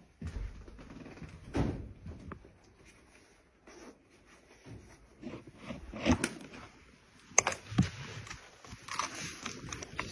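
Footsteps and handling noise of someone moving through a building: scattered knocks and thuds, a sharp click about seven seconds in, and rustling near the end.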